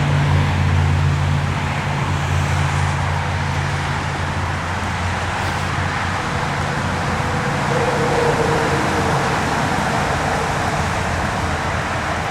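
Road traffic noise: a steady wash of passing cars, with a low engine hum that fades about four and a half seconds in.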